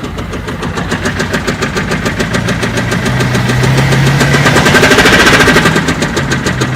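BMW 1 Series 2-litre diesel engine running with a rapid, even knocking, the abnormal 'tab tab tab' noise being diagnosed. The engine gets louder toward the middle and eases back near the end.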